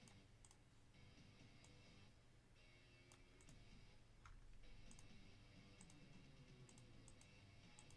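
Near silence broken by faint, scattered computer-mouse clicks, about a dozen single clicks at irregular intervals over a low room hum.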